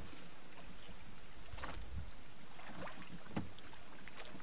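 A freighter canoe under way on the river, heard as a faint, steady motor drone with wind on the microphone and a few short light knocks.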